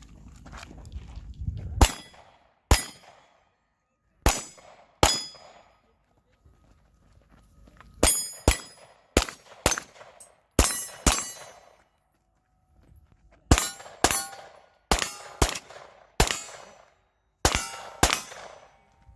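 A string of about seventeen pistol shots fired in quick groups, mostly close pairs, with steel plate targets ringing under the hits.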